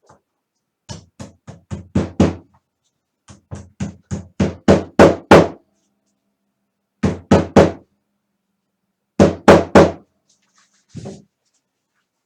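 Hammer tapping on the metal prongs of a magnetic snap to flatten them, in quick runs of sharp knocks. About six taps come first, then a run of about eight that grows louder. Two sets of three follow, then a couple of light taps near the end.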